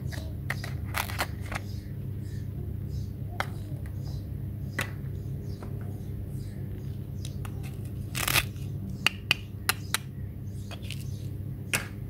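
Plastic toy knife and plastic toy kitchen pieces being handled: scattered light clicks and taps, a short scratchy rasp about eight seconds in followed by a quick run of sharp clicks, over a steady low hum.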